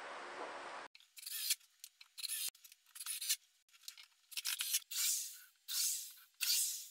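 Power drills run in a string of short trigger bursts, pilot-drilling and driving screws into pine and plywood. The sound is sped up and thin, and several bursts wind down in pitch as they stop.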